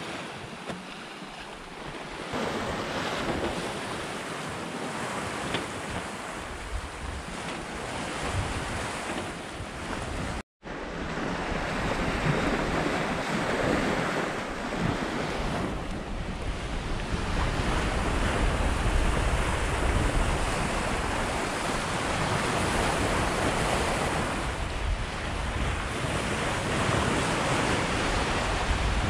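Sea water rushing and foaming along the hull of a Hallberg-Rassy 54 yacht under sail, with wind buffeting the microphone. The sound drops out for an instant about ten seconds in, and the wind rumble is stronger in the second half.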